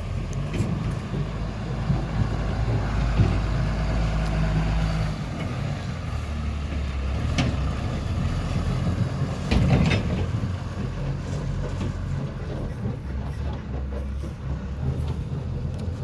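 Heavy diesel engine running steadily at a loading site, its note dropping lower about five seconds in. Two short knocks come around seven and ten seconds in.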